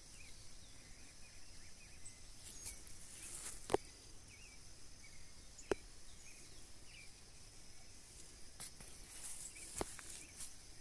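Faint countryside ambience: a steady high drone of insects with short, repeated bird chirps. Three sharp clicks stand out, about four, six and ten seconds in.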